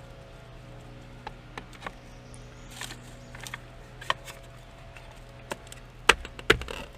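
Scattered clicks and knocks of electrical plugs being handled and seated in an outlet, the two loudest about six seconds in, over a steady low hum.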